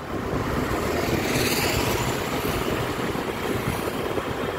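Steady road and wind noise of a moving vehicle.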